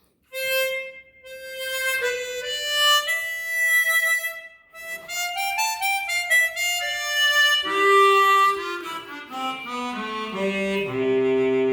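Psardo Elite chromatic harmonica with stock gold-plated solid brass covers, played through a microphone: a melody of single notes that works its way down and ends on a held low chord.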